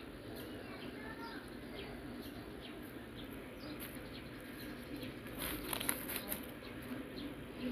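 Plastic bubble wrap crackling as the phone is handled on it, a cluster of crackles about two-thirds of the way in, over steady background noise with a few birds chirping early on.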